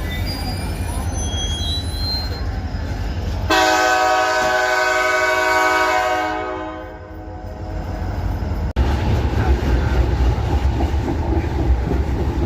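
Train rumbling low, then a locomotive air horn sounds once about three seconds in, a steady multi-note chord held for about three seconds before fading away. Near the end the train's low rumble comes in louder.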